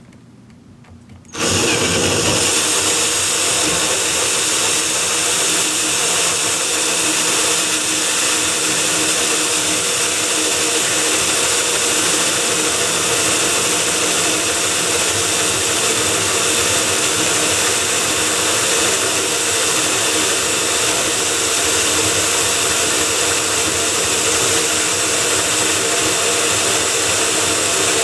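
Power drill spinning a 2 1/8-inch hole saw as it cuts through a door, enlarging an existing 1 3/4-inch handle hole. It starts about a second in and runs loud and steady, without a break.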